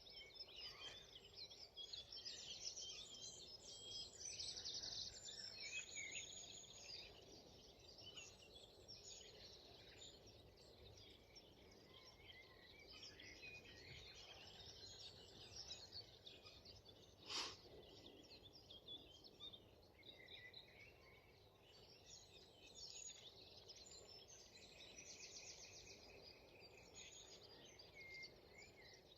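Faint mixed birdsong from several songbirds: short chirps and trills overlapping throughout. There is a single sharp click about seventeen seconds in.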